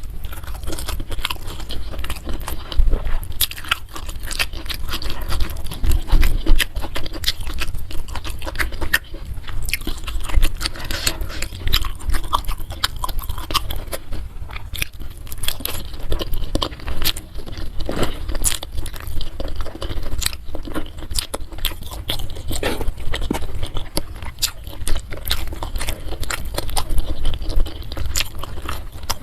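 Close-miked chewing and crunching of food in the mouth: a dense, irregular run of wet clicks and crunches.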